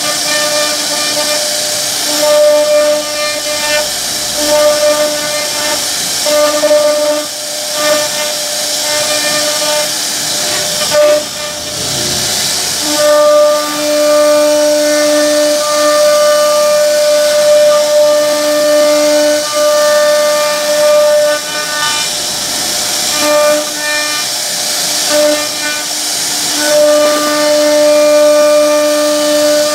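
CNC router spindle whining as its carving bit cuts relief patterns into wood, over a constant hiss of cutting. The whine holds steady pitches but swells and fades in strength, strongest from about 13 to 21 seconds in and again near the end.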